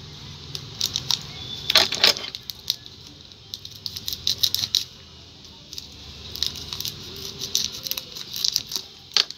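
Plastic wrapper of a pack of modelling clay crinkling and crackling as it is handled and cut open with scissors, in many short crisp clicks with a few louder clusters.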